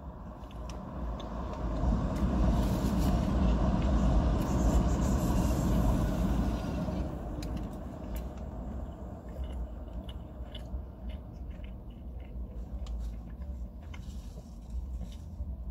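Low traffic rumble heard from inside a parked car, swelling for several seconds in the first half as a vehicle passes outside, then settling back to a steady hum. Small clicks of chewing come through in the second half.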